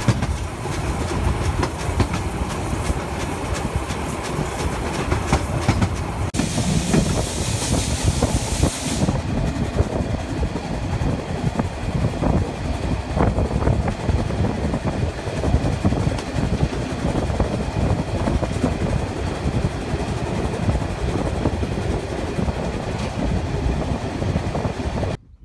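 Steam train running, its wheels clattering over the rails with a continuous rumble. A burst of high hiss starts about six seconds in and lasts about three seconds. The sound cuts off abruptly just before the end.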